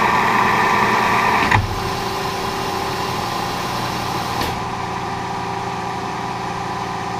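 Milling machine cutting a vise jaw, its steady cutting tone stopping suddenly about one and a half seconds in as the pass finishes; the machine then runs on with a steady hum, and a higher hiss drops away a few seconds later.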